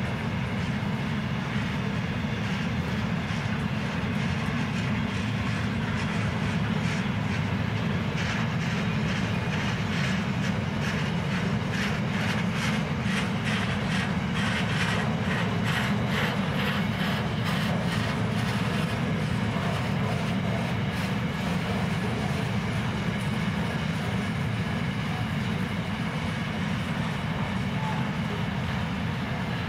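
Freight train wagons of a steel train rolling past: a steady low rumble of steel wheels on rail, with a regular clickety-clack of wheels over rail joints that is clearest through the middle stretch.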